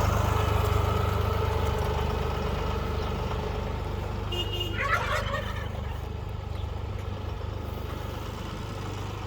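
An engine runs steadily at a low pitch, slowly getting quieter. A brief high-pitched wavering sound comes about five seconds in.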